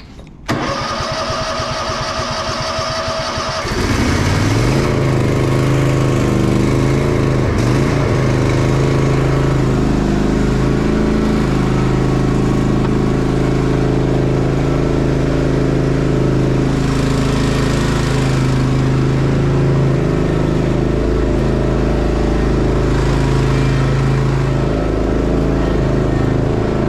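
John Deere mower engine cold-started with its electric starter: the starter cranks it with a whine for about three seconds, then the engine catches and runs steadily.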